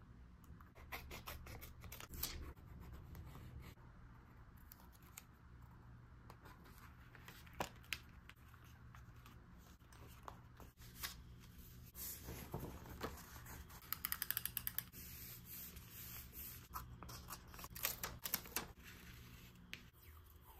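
Hands working paper and stationery for journal decorating: scattered soft taps and rustles, a scraping, tearing-like stretch about halfway, and a quick run of about ten clicks soon after.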